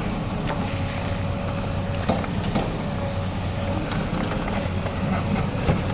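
Komatsu PC200 hydraulic excavator's diesel engine running steadily, with a few short knocks.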